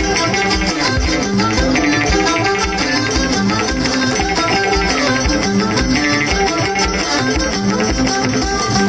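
Live Moroccan folk music: plucked string instruments over hand drums and rattles playing a steady beat.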